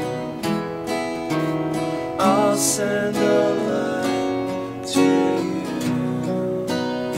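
Acoustic guitar strummed in a live band performance, chords changing every second or so.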